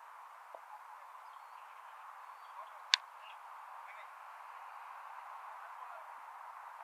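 A single sharp crack about three seconds in, a cricket bat striking the ball, over a steady outdoor hiss, with a few faint high chirps.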